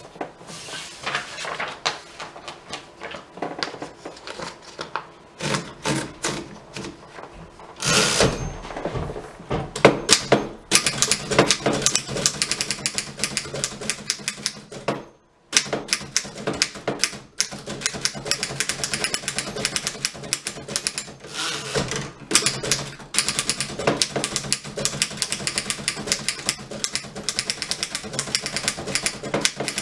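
1915 Fox No.24 standard typewriter being typed on, its typebars striking in quick clicks, slower at first and then very fast, with a short rasping noise about eight seconds in and a brief break about halfway through.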